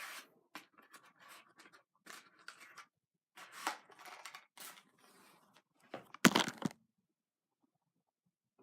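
Matches struck against a matchbox: a series of short, scratchy strikes, the loudest about six seconds in, with nothing after about seven seconds.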